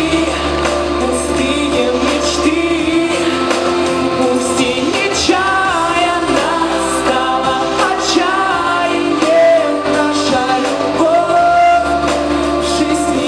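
A young man singing a song into a microphone over instrumental backing music, amplified through the hall's speakers.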